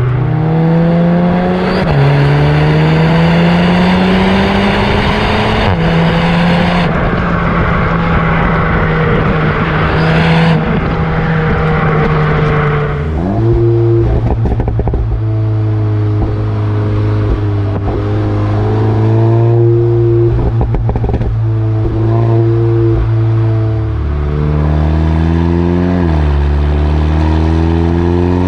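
Exhaust of a stock Volkswagen 2.0-litre turbocharged four-cylinder car, with petrol particulate filter, under acceleration. The revs climb, drop with an upshift about two seconds in and climb again. The engine then holds a steady note at part throttle, with further drops and rises near the end.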